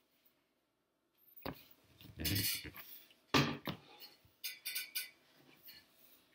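Handling noise: a couple of dull thuds with a short scrape between them, then light clicks and rustles, as things are moved and set down on a hard surface.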